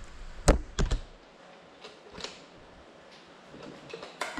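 Small FPV cinewhoop drone crashing onto a hard floor: two sharp knocks about half a second apart, then a few faint ticks, with no motor whine.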